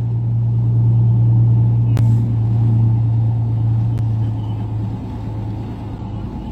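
Dodge Ram pickup truck heard from inside the cab as it drives through a flooded road, its engine giving a steady low drone over the rush of tyres pushing through floodwater. There are two short clicks, about two and four seconds in, and the drone eases near the end.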